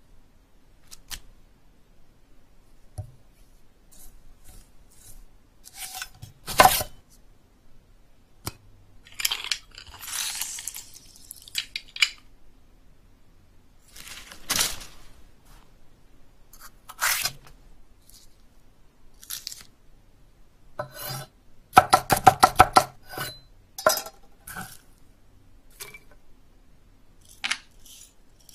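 Sound effects of small objects being handled, cut and scraped: sharp clicks and knocks every few seconds, a hissing scrape about a third of the way in, and a quick run of about a dozen chopping clicks about three-quarters of the way through.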